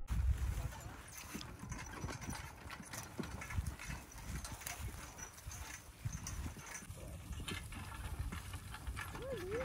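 Horse hooves clopping on grass and soft ground as a harnessed pony pulls a cart, over a low rumble of wind on the microphone. A brief wavering voice-like sound comes near the end.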